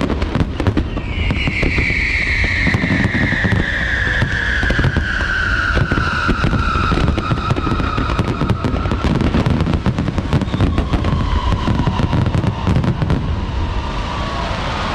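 Dense fireworks barrage: rapid, continuous crackling and bangs of shells bursting. From about a second in, a long high tone slides slowly down in pitch above the crackle.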